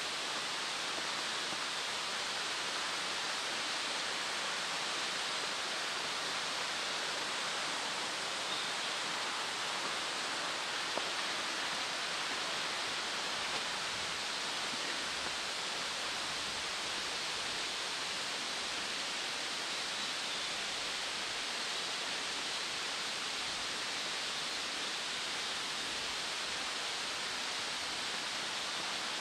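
Steady, even hiss of outdoor background noise, unchanging and with no distinct events.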